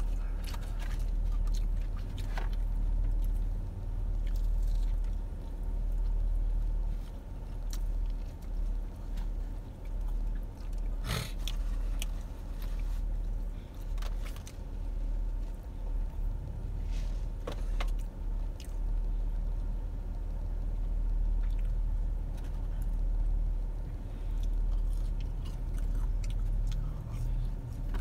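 Steady low rumble of a car idling, heard from inside the cabin, with quiet chewing and a few sharp clicks and rustles of food being handled.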